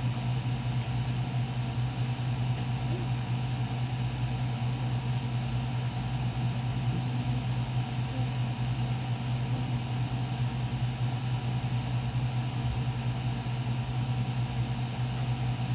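A steady low mechanical hum that holds unchanged throughout, with faint steady higher tones over it.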